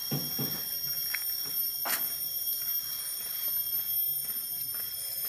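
Steady, high-pitched insect chorus in the forest, with footsteps crunching over leaf litter and twigs in the first half-second and a sharp snap of a twig about two seconds in.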